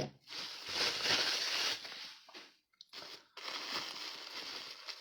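Packing material crinkling and rustling as small figurines are unwrapped by hand, in uneven handfuls with a brief pause a little past halfway. A sharp click comes right at the start.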